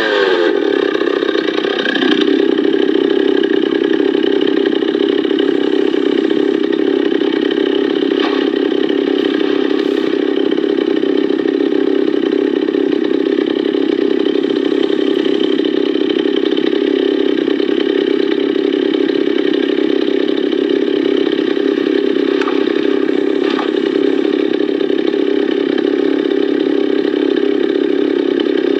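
Echo CS-440 EVL two-stroke chainsaw engine running at a steady speed, its pitch settling right at the start and then holding even, with a few faint ticks.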